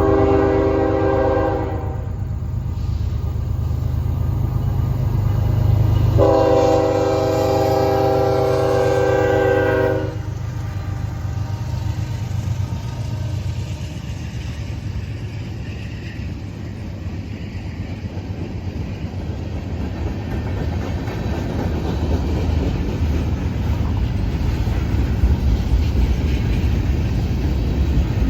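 Norfolk Southern manifest freight train passing, its locomotive horn sounding twice: a blast of about two seconds, then a longer one of about four seconds a few seconds later. Under it the locomotives' diesel engines rumble, then the freight cars roll by with a steady rumble and clatter that grows louder toward the end.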